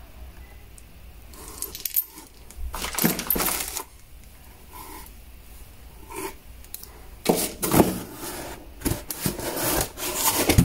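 Small steel bolts and washers clinking together in the hand, with plastic parts bags crinkling and a cardboard box shifting on the bench, loudest in the second half.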